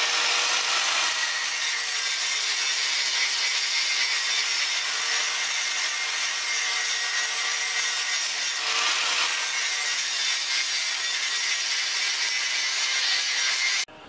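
Angle grinder grinding the steel laminations of a toroidal transformer core: a steady grinding noise over the motor's whine, cutting off suddenly near the end.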